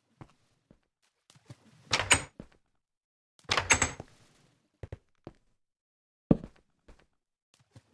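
Handling noises: scattered clicks and knocks, with two louder scraping, sliding sounds about two seconds in and again around three and a half seconds in, and a sharp knock a little past six seconds.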